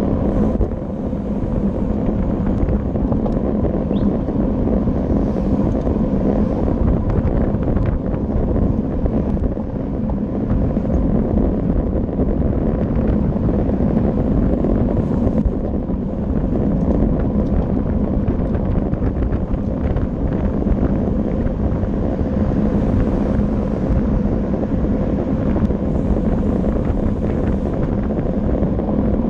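Steady wind buffeting on the microphone of a camera riding on a moving road bicycle, over a constant low rumble of tyres on tarmac.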